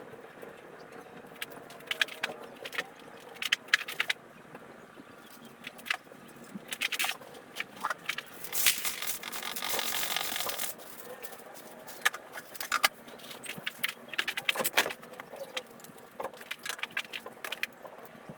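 Irregular clicks, knocks and light clatter of small hard objects being handled, with a hissing rush of about two seconds in the middle.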